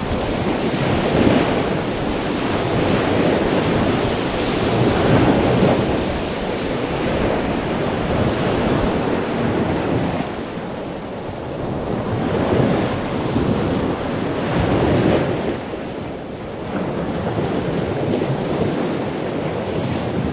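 Ocean surf washing in, the rush swelling and easing every few seconds, with wind buffeting the microphone.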